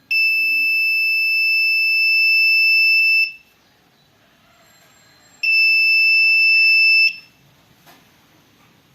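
Buzzer of a touch-activated doorbell circuit sounding a steady high-pitched tone for about three seconds. After a two-second pause it sounds again for about a second and a half.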